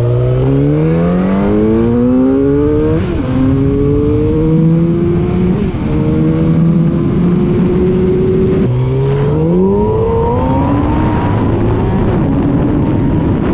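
Motorcycle engine accelerating hard, its pitch climbing through the revs and dropping at each gear change; about two-thirds through it falls back low and climbs again.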